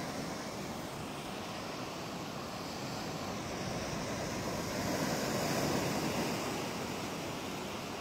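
Machine-made surf in a wave pool: a steady rush of breaking whitewater, swelling a little about five seconds in.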